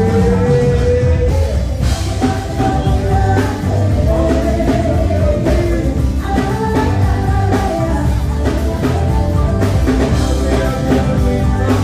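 Live band music through the stage sound system at a sound check: drums and heavy bass playing steadily under a singer holding long, wavering notes.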